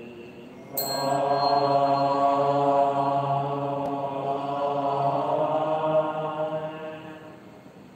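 Buddhist devotional chanting: a voice sings one long, slowly drawn-out phrase that starts about a second in and fades away near the end, as a prostration chant during a bowing service.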